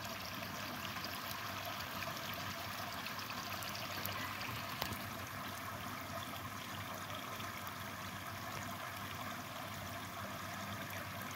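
Water pouring from a spout between the rocks into a garden pond: a steady, faint trickle and splash.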